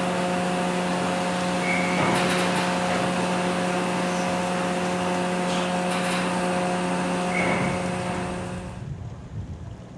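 Steady machinery hum of a moored car ferry, a low drone with several higher steady tones, with a few metallic clanks as a car drives off over the steel vehicle ramp. Two short high beeps sound, and the hum fades out about nine seconds in.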